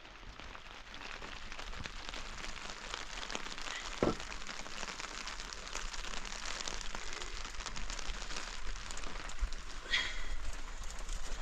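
Steady rain falling, a dense haze of small drop hits that grows louder over the first couple of seconds. A single knock about four seconds in.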